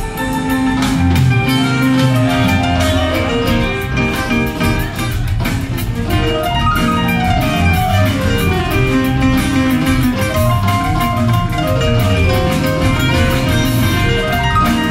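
A live band plays an instrumental passage of a country-rock song on acoustic guitars, electric bass, drum kit and organ, with a steady beat and a falling melodic run in the middle.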